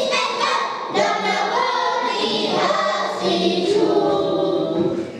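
Children's choir singing, with several notes held for about a second at a time.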